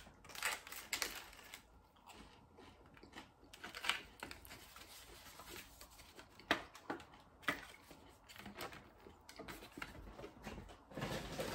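Eating sounds: a sip from a drink can, then chewing a crisp fried apple pie and the crinkle of its paper sleeve, heard as scattered soft clicks and rustles.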